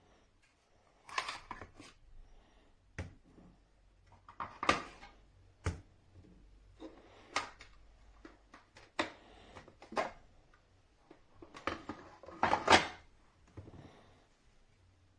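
Irregular clicks, knocks and brief rustling of small hard objects being handled and set down, about a dozen separate sounds with the loudest clack near the end.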